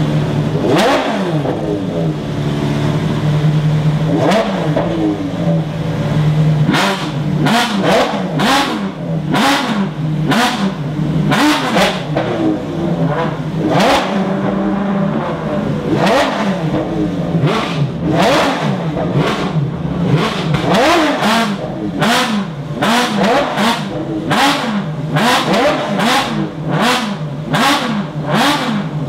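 Ferrari V12 track car engine idling between throttle blips. For the first few seconds the revs swell up and fall back slowly. After that come short, sharp blips of the throttle, one or two a second, with the revs snapping up and dropping straight back.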